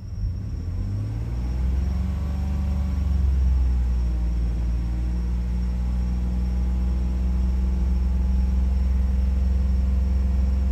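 Ford 3.5 EcoBoost twin-turbo V6 revving up over the first couple of seconds and then held steady at raised revs, heard from inside the cab. Holding the revs up circulates the fresh coolant and drives trapped air out of the cooling system.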